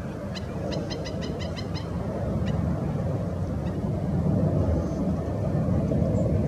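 Black-necked stilt calling in flight: a quick run of short calls, about five a second, lasting under two seconds near the start, then a couple of single notes, over a steady low rumble.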